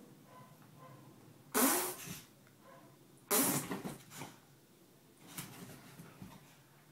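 Three fart sounds, each a short burst of about half a second, a couple of seconds apart; the third is fainter.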